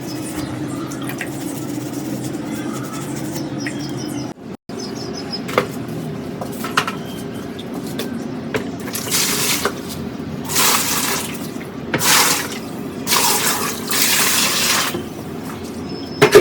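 Water running and splashing over a steady low hum, then about five short hissing sprays of around a second each in the second half.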